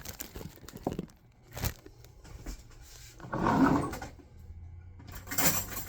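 Kitchen handling noises: a few light clicks and knocks, then two short scraping rustles.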